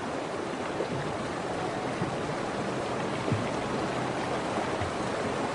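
Fast, cold river water rushing steadily as a bison herd wades and swims across, with a couple of faint low knocks.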